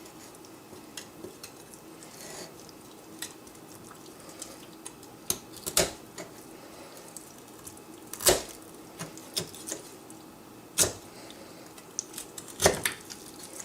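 Cutting the breastbone out of a raw spatchcocked chicken: scattered small clicks and taps of the blade and bone against the board, with four sharper knocks spread across the stretch.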